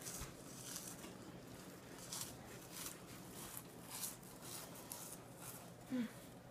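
Faint crunching of saltine crackers being chewed, soft irregular crunches scattered throughout. A brief low vocal sound comes about six seconds in.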